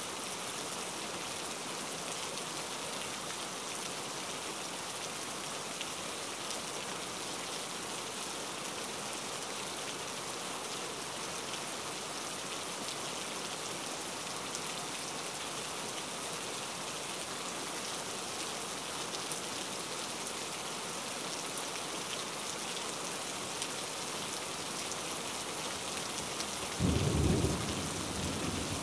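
Steady sizzling hiss of a spiced vinegar sauce (oil, ginger, garlic, red chillies) cooking in a frying pan. About a second before the end comes a brief, louder low sound.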